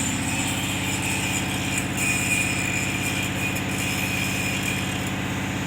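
A heavy diesel engine running steadily at idle, with a fast even pulse and a thin high whine over it.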